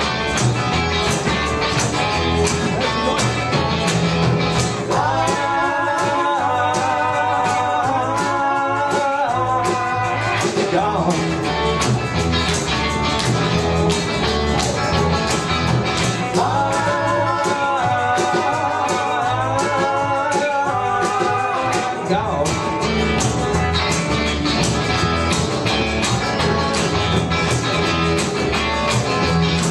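Live band playing an instrumental break, guitar over a steady beat. A lead melody line comes in twice, about five seconds in and again about sixteen seconds in.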